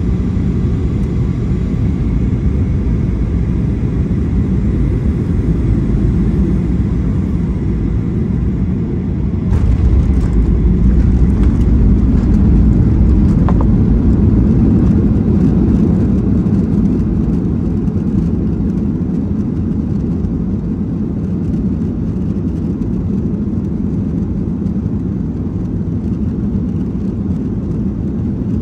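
Cabin noise of a Boeing 737-800 with CFM56-7B engines on short final, a steady low rumble. About ten seconds in it touches down: the rumble jumps louder with a few sharp knocks, stays loud for several seconds as the jet decelerates on the runway, then slowly eases off.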